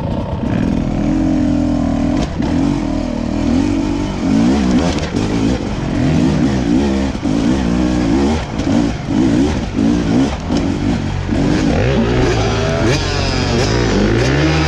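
Enduro motorcycle engines revving unevenly under load on a steep rocky climb, the pitch rising and falling constantly as the throttle is worked.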